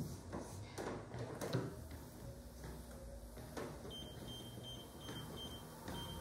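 Footsteps on the deck of a True Fitness PS300 treadmill as someone steps on and walks. From about four seconds in a steady high-pitched whine from the treadmill joins them as the belt runs.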